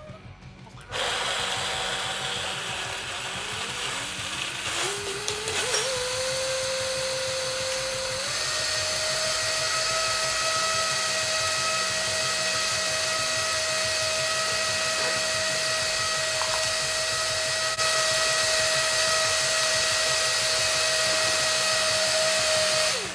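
High-powered countertop blender puréeing raw cashews with hot water into a cream sauce. The motor starts about a second in and its pitch rises over the next several seconds as the speed is turned up. It then runs steadily at high speed, a little louder in the last few seconds, and cuts off just before the end.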